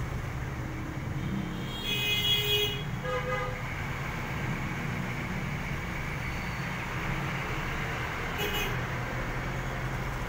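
Street traffic: the steady engine rumble of passing motorcycles, motorised tricycles, a jeepney and trucks, with a vehicle horn tooting briefly about two seconds in and a short high tone near the end.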